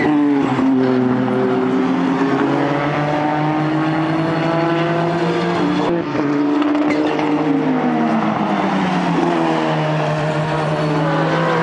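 Toyota Eagle Mk III IMSA GTP race car's 2.1-litre turbocharged four-cylinder (3S-GTM) at racing speed. Its engine note sinks and climbs with the throttle and gear changes, breaks briefly about halfway, and climbs again near the end as the car accelerates.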